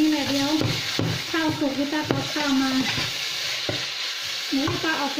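Pork and vegetables sizzling in a nonstick pan while a slotted nylon spatula stirs and scrapes them, with a short squeaking note on most strokes, about once a second.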